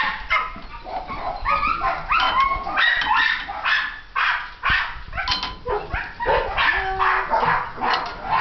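Several puppies yipping and whining, short high-pitched calls overlapping one after another.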